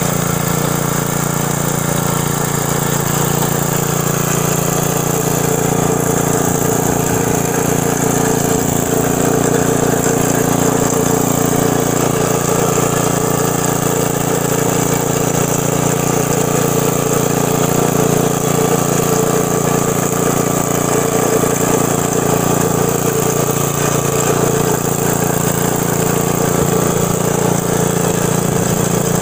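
Small gas engine of a garden tiller running steadily, its rotating tines digging into and churning loose soil.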